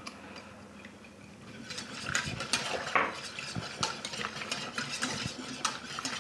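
A wire whisk stirring in a stainless steel pot, with quick irregular metal clicks and scrapes that start about two seconds in, as pudding powder dissolved in apple juice and wine is whisked into the hot liquid.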